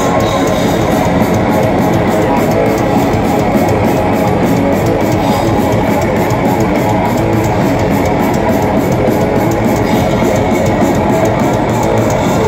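Thrash metal played live at full volume: heavily distorted electric guitars and bass over fast, steady drumming at about five strokes a second, heard from inside the crowd.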